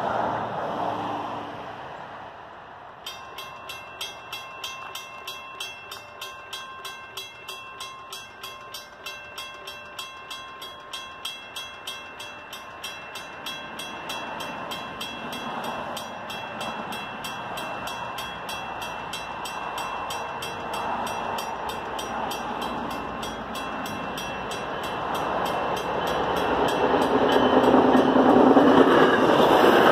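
Railroad crossing bell starts ringing about three seconds in with rapid, evenly spaced strikes, the crossing signals activated for an approaching MBTA commuter train. The rumble of the train grows from about halfway and is loudest near the end as it reaches the crossing.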